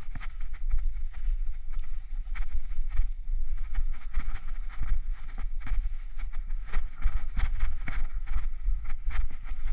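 Bicycle riding over a rough, muddy dirt track: a steady low wind rumble on the camera microphone, with frequent irregular rattles and clicks as the bike jolts over the bumps.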